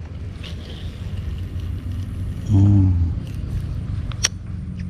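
A motor engine running steadily in the background, a low hum. A short vocal sound comes about two and a half seconds in, and a single sharp click comes near the end.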